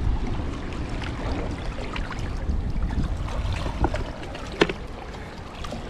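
Wind buffeting the microphone over water lapping against shoreline rocks, the wind rumble easing off after the first second or so. A single sharp knock comes about four and a half seconds in.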